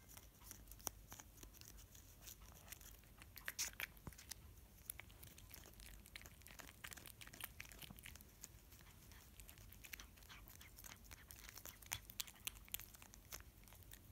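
Cat licking a paste treat from a squeeze packet: faint, irregular wet clicks of its tongue.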